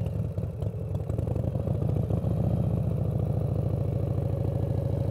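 1994 Harley-Davidson Fat Boy's Evolution V-twin running at low revs through a slow U-turn. Its rumble is uneven for the first second, then steadies and grows a little louder as the bike straightens out.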